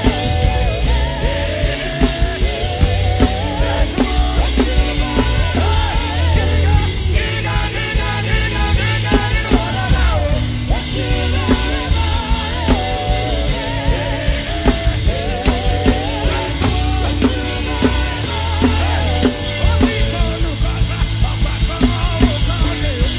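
Live band music driven by an acoustic drum kit played fast and hard, with cymbal crashes over a deep, steady bass and wavering melodic lines.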